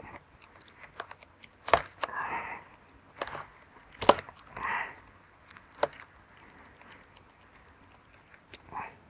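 Blade cutting and prying at a rubber boot on a cordless reciprocating saw: several sharp clicks and snaps with short tearing, scraping bursts of rubber between them.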